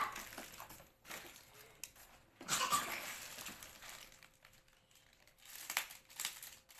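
Plastic packaging crinkling and rustling in irregular spells as a parcel is unwrapped.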